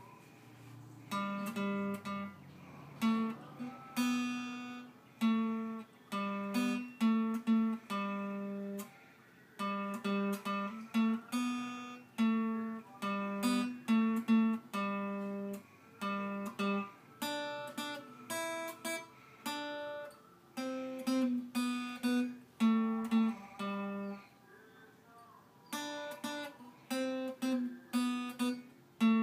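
Small acoustic guitar picked note by note, a simple melody of short ringing notes with a brief pause about 24 seconds in, played by a child at beginner level from a lesson book.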